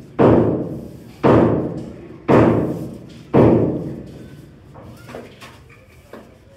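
A long steel rod rammed up against the concrete ceiling slab: four heavy blows about a second apart, each echoing in the bare brick room, then a few light knocks near the end.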